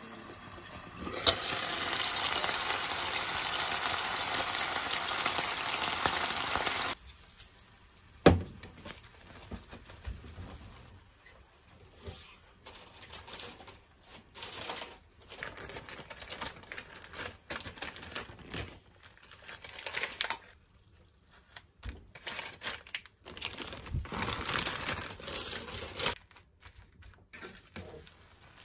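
Food sizzling in a lidded frying pan for about six seconds, cutting off abruptly. Then plastic cling film crinkles and rustles as cooked rice is wrapped and pressed into a rice ball, with a single sharp click about eight seconds in.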